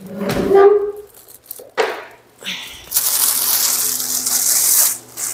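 Food sizzling in a hot frying pan on the stove, starting suddenly about three seconds in, over a steady low hum.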